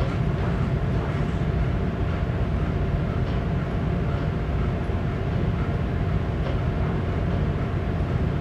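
A cargo ship's engine and machinery running steadily at half ahead: a constant low drone with a faint steady hum above it.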